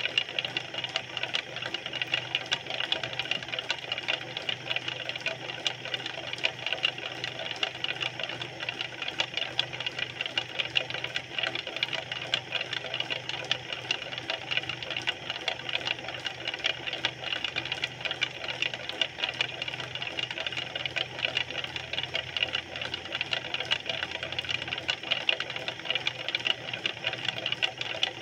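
Electric potter's wheel running steadily under wet clay being thrown, its motor giving a constant whirring rattle with a low hum beneath.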